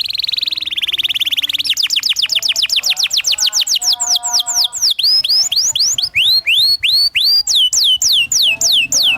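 Canary singing a rolling song. It opens with a very fast buzzing trill, then runs into quick whistled notes falling steeply in pitch, several a second. Around the middle these slow into longer swooping notes, then quicken again near the end.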